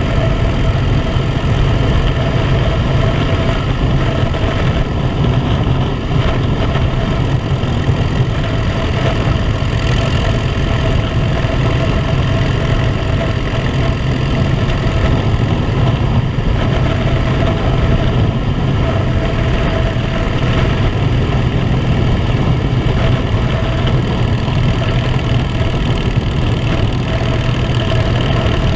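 Harley-Davidson motorcycle's V-twin engine running steadily at cruising speed, heard from the rider's seat.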